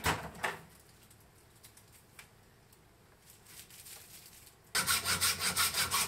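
A hacksaw cutting through the metal prongs of a mains plug clamped in a bench vise: quick, even back-and-forth strokes that start suddenly about three-quarters of the way in, after a brief rustle and a quiet stretch.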